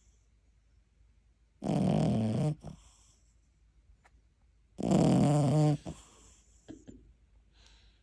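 French bulldog puppy snoring in her sleep: two snores about three seconds apart, each lasting about a second, with a few faint snuffles near the end.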